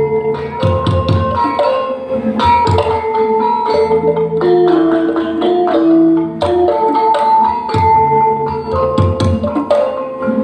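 Dance accompaniment music: a melody on mallet-struck instruments over drum strokes keeping a steady beat.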